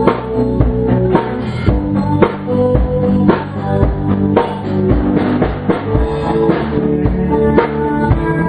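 A small rock band jamming live: a drum kit keeping a steady beat under guitars playing sustained notes and chords.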